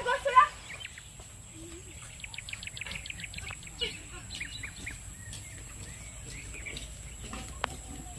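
Birds chirping outdoors, with a quick run of short high chirps about three seconds in and scattered calls after. It opens with a brief loud sound, over a steady faint hiss and low rumble.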